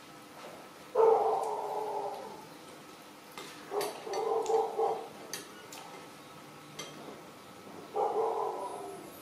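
An animal calling three times, each call a pitched cry about a second long: one a second in, one in the middle and one near the end.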